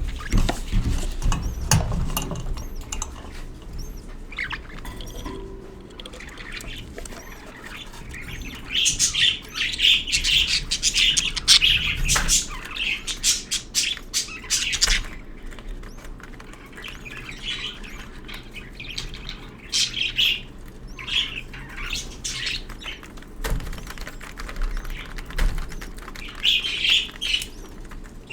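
Budgerigar chirping and squawking in short clustered bursts, loudest about a third of the way in, again around two-thirds and near the end. A few soft knocks come in the first couple of seconds.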